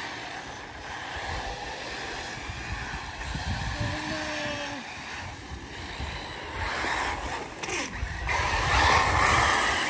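Arrma Typhon 6S electric RC buggies racing on a dirt track: the brushless motors whining and the tyres working the dirt, the sound swelling as the cars pass and loudest near the end, with wind on the microphone.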